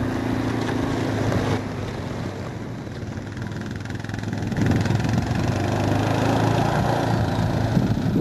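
Yamaha Rhino side-by-side utility vehicle's engine running as it drives, getting louder about halfway through.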